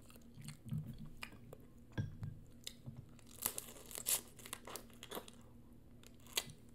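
Boiled crawfish shells cracking and crinkling as they are peeled by hand, with wet chewing close to the microphone. A few sharper cracks come about three and a half to four seconds in and again near the end.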